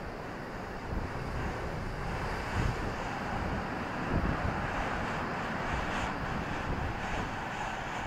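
Rough sea surf breaking and washing in, a steady rushing that swells from about two seconds in. Wind buffets the microphone in low, uneven rumbles.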